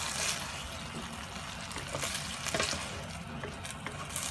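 Beef and broccoli in thick sauce sizzling and bubbling in a frying pan, with a wooden spatula stirring and knocking against the pan a couple of times around the middle.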